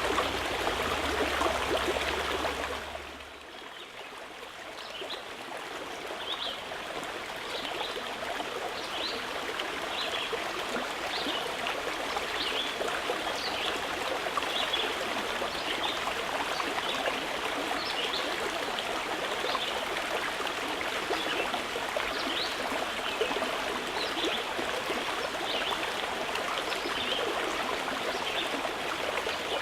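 Running water of a stream, a steady rush. About three seconds in, the sound dips suddenly and changes to a different stretch of flowing water, with small high trickling flicks recurring about once a second.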